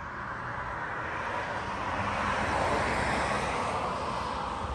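A car driving past on the road, its tyre and engine noise swelling to a peak about halfway through and then slowly fading.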